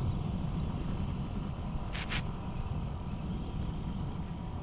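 Steady low rumble of a Yamaha NMAX 155 single-cylinder scooter being ridden along a road, its engine mixed with wind noise on the handlebar camera's microphone. Two short hissing ticks come about two seconds in.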